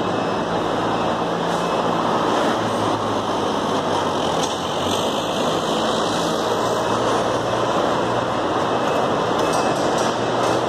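Steady, dense din of a large market hall, with a low hum of vehicle engines under it.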